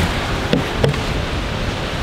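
Steady rush of breaking surf and wind, with two short knocks about half a second and nearly a second in.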